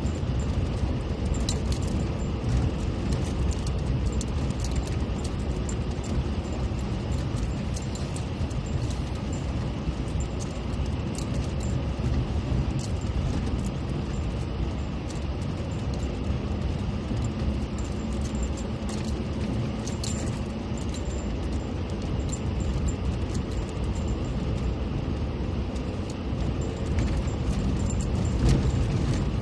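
Off-road vehicle driving: a steady low rumble with frequent light rattles and clicks.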